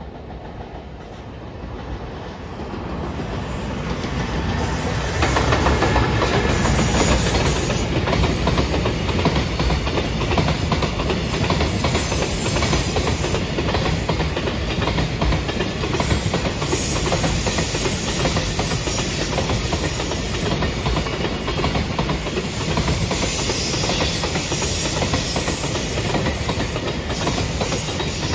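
JR Freight container train approaching and then passing close by. The sound builds over the first few seconds, then holds as a steady running noise with the wheels clattering over the rail joints as the container wagons roll past.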